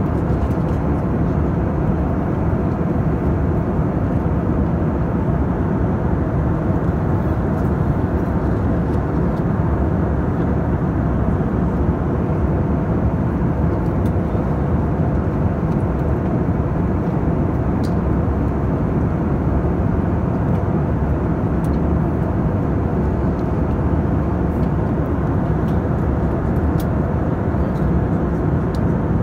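Steady airliner cabin noise in flight: an even rush of jet engines and airflow over the fuselage.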